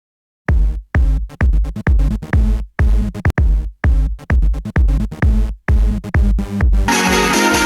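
Electronic music: a string of heavy bass hits, about two a second, each cut off short. Near the end the full, dense track comes in.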